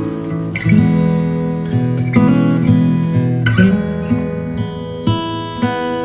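Background music: an acoustic guitar strumming chords, changing chord about every second and a half.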